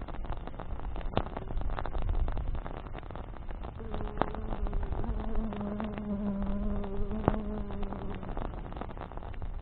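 Campfire burning, crackling with sharp pops over a steady low rush. From about four seconds in, a flying insect buzzes close by for about four seconds, then is gone.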